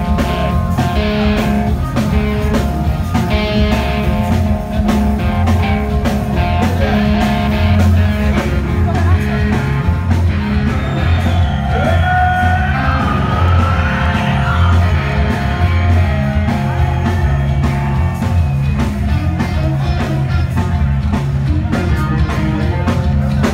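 Heavy metal band playing live and loud: electric guitars, drums and sung vocals, with a steady drum beat under sustained guitar chords.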